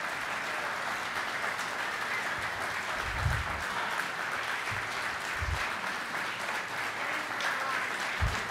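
Large audience applauding steadily: a dense, even wash of many people clapping.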